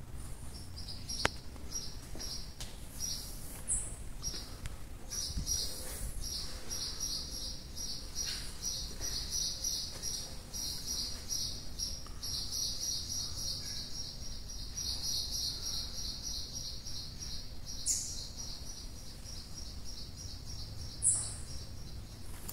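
High-pitched chirping in a fast, even trill, patchy at first and then almost unbroken from about five seconds in, with a few short, still higher squeaks and one sharp click about a second in.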